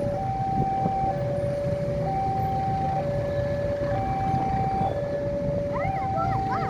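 Railway level-crossing warning alarm sounding a two-tone electronic signal, alternating high and low tones about a second each, over a steady low rumble. A few quick whistling chirps come in near the end.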